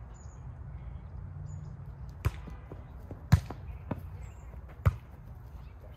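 A volleyball being struck by hands and forearms during a rally: four sharp smacks, roughly a second apart, starting a little past two seconds in, with the third one fainter. They sound over a steady low rumble.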